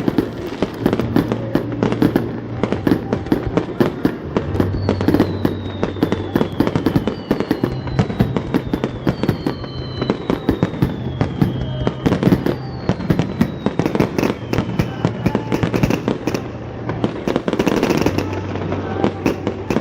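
Aerial fireworks bursting and crackling in rapid succession, with several falling whistles near the middle. Music with a low bass line plays under them.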